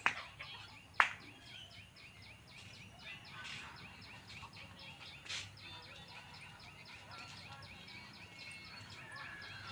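Outdoor ambience with a fast, steady run of short high chirps, about five a second, from a small creature such as an insect or bird. Two sharp clicks sound at the start and about a second in.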